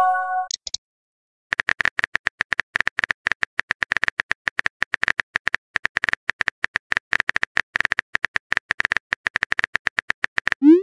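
Rapid clicking of a phone-keyboard typing sound effect from a texting-story app, starting about a second and a half in. A short chime at the start marks a message being sent, and a quick rising swoop near the end marks the next message popping in.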